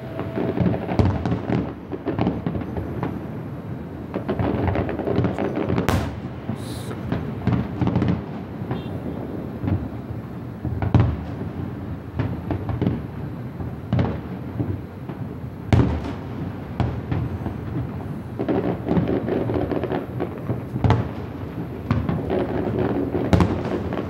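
Aerial fireworks shells bursting in a dense, continuous barrage of booms and crackling. Several sharper, louder bangs stand out from the rumble.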